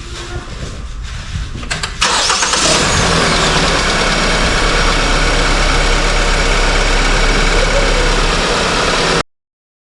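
Hyundai Tucson engine starting about two seconds in, after a few faint clicks, then idling steadily. The sound cuts off abruptly near the end.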